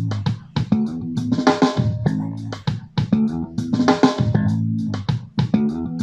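A song with bass guitar, guitar and drum kit playing on a steady beat through a JBL Go 2+ portable Bluetooth speaker in a sound test.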